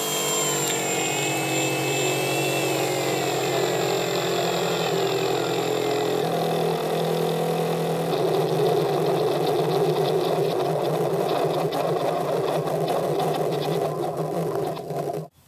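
Electric AT-6 Texan RC model at low throttle: its onboard sound system plays a steady simulated radial-engine idle over the whine of the Power Up 15 brushless motor. The whine falls in pitch over the first few seconds, and the sound cuts off abruptly near the end.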